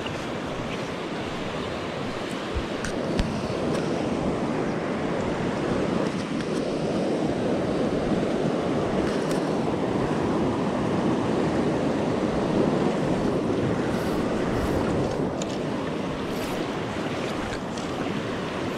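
Steady rush of a swollen river running high with snowmelt and field runoff, growing a little louder for a while in the middle, with a few faint clicks and knocks.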